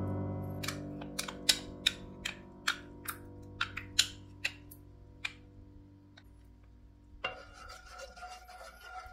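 Wooden spoon scraping sticky honey and ginger syrup out of a small ceramic cup in a series of short, sharp scrapes. From about seven seconds in, the spoon stirs the soy-sauce glaze in the pan, a denser scraping sound.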